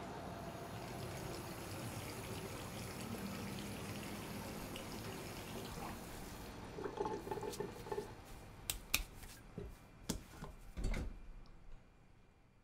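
Quiet room ambience with a steady hiss, then in the second half a scatter of short clicks and knocks and one heavier low thump about eleven seconds in.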